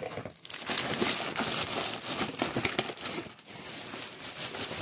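Black plastic garbage bag and the crumpled paper and plastic packaging inside it crinkling and rustling as a hand pushes the trash down.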